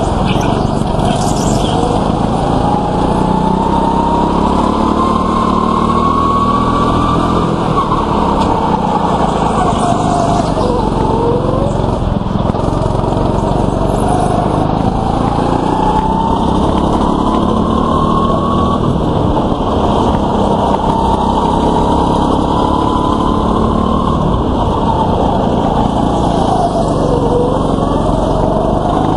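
Small single-cylinder go-kart engine heard from the driver's seat, its pitch climbing over several seconds as the kart accelerates down the straights and dropping sharply as it slows for the corners, a few times over.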